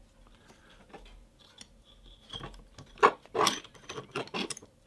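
Plastic parts of a 3D-printed PLA view camera clicking and knocking as its rear standard is moved and adjusted by hand, with a brief faint squeak about two seconds in and a cluster of clicks and knocks over the last two seconds.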